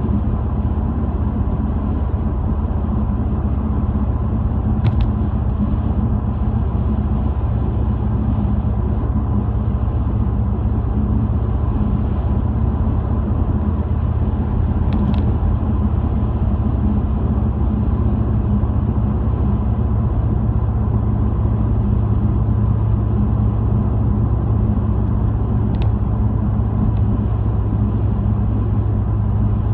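Car driving at steady speed, heard inside the cabin: a continuous low rumble of engine and tyres on the road. A faint tick sounds every several seconds.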